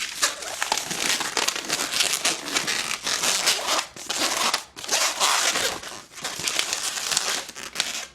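A latex modelling balloon rubbing and squeaking against itself and the hands as it is twisted into a dog leg twist for a balloon dog's front legs. The sound is a dense crinkly rubbing with a couple of brief breaks, and it stops suddenly at the end.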